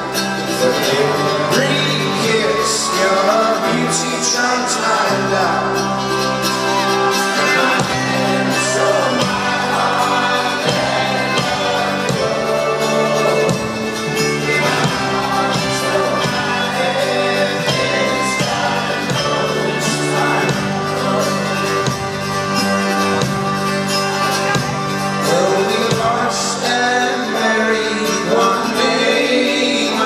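Live folk-rock band playing loudly: a male voice sings lead over strummed mandolin, accordion, acoustic guitar and fiddle, with steady bass notes underneath.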